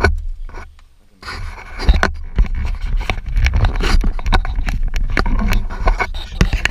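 Handling noise on the camera itself: a sharp knock, then from about a second in continuous loud rubbing and scraping against the microphone with many small knocks.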